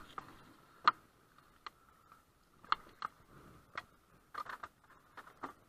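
Canoe paddling: the paddle knocks and clicks lightly against the canoe's side, in a string of short, irregular sharp ticks, with water sounds from the strokes.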